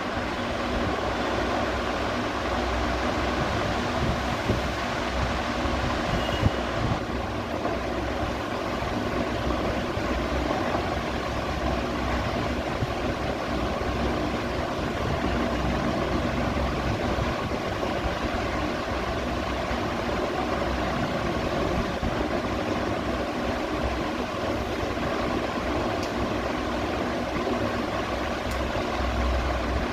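Ceiling fan running steadily: an even whirring rush of air with a faint motor hum underneath.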